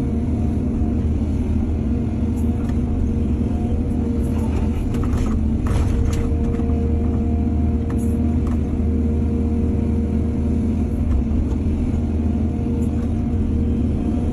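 Excavator's diesel engine running steadily, with a scatter of short clanks and scrapes from about two seconds in to near the middle.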